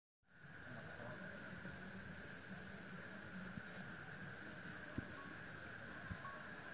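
Crickets trilling steadily: one continuous, rapidly pulsing high trill with a second, lower trill beneath. The sound cuts in abruptly just after the start.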